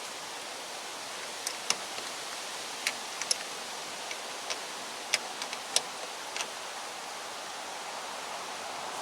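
Scattered sharp metallic clicks and taps, about a dozen spread unevenly, as a wrench works the bolt on a car-type battery terminal, over a steady background hiss.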